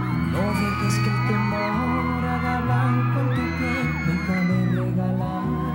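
Live Latin pop band playing an instrumental passage, with a steady bass line and acoustic guitar, and whoops from the audience over it.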